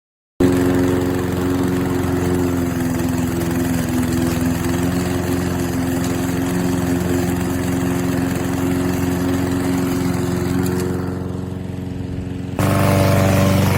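PowerSmart push mower's 144cc OHV four-stroke engine running steadily. The sound starts abruptly and, about a second before the end, jumps suddenly to a louder, fuller engine sound.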